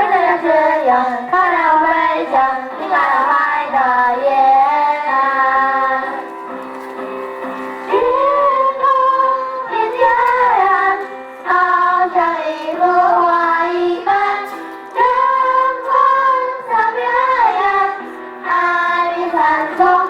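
A song: a voice singing a melody with held notes over instrumental accompaniment, with a brief quieter passage about a third of the way in.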